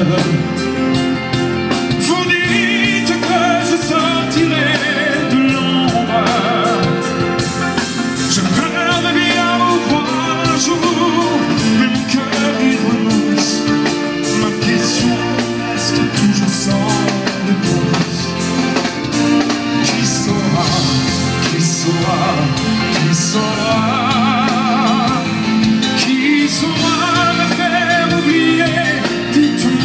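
A live pop-rock band of drums, bass and electric guitars plays a steady beat under a high melody held in long notes with vibrato, with no words.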